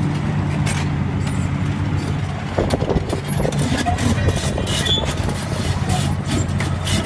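Large Liebherr crawler excavator's diesel engine running with a steady low hum, joined from about two and a half seconds in by irregular clanks and clicks as the machine tracks across the ground.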